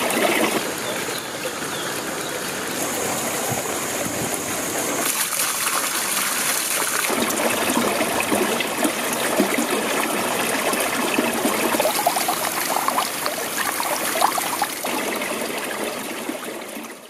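Water trickling and gurgling steadily, fading out near the end.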